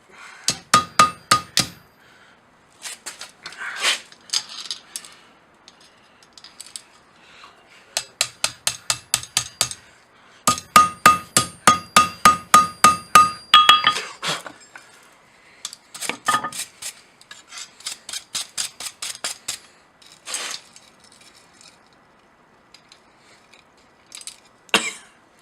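Hand hammer striking a hot ring of quarter-inch round steel bar on an anvil to flatten it, in several quick runs of blows, about four or five a second, with short pauses between runs. Each blow leaves a bright metallic ring.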